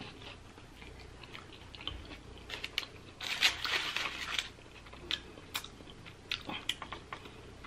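Close-up chewing of a bite of chicken burrito, with small wet mouth clicks. About three seconds in comes a denser rustle, the foil wrapper crinkling as the burrito is set down.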